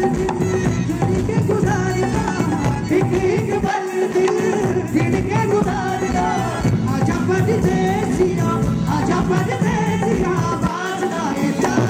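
Male voices singing a Bollywood song into microphones over a live band of keyboards and hand drums, played loud through a PA. The bass drops out briefly twice.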